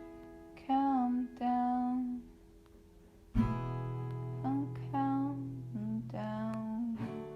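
Acoustic guitar chords strummed and left to ring, with a new strum about halfway through and another near the end, while a voice sings short melodic phrases over them.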